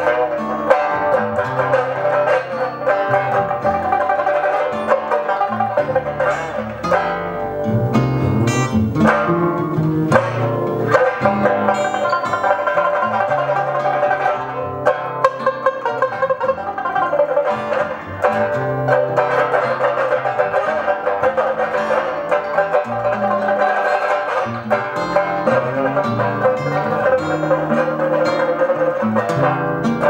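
Sanxian, acoustic guitar and plucked upright bass playing together in a jazz trio, with a steady stream of twangy, banjo-like plucked notes over a walking bass line.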